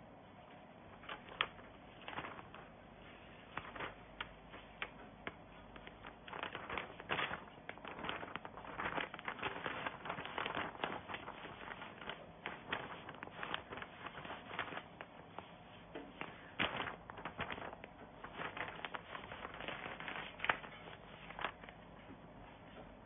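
Crinkling and rustling of a plastic DTF transfer film and a T-shirt being handled and smoothed on a heat press, with many scattered sharp clicks.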